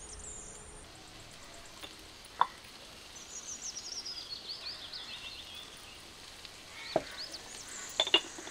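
Banana flower bhaaji sizzling quietly in a clay pot over a wood fire, with sharp clinks of utensils and crockery: one loud clink about two and a half seconds in, and a few more near the end. A quick run of high chirps sounds in the background midway.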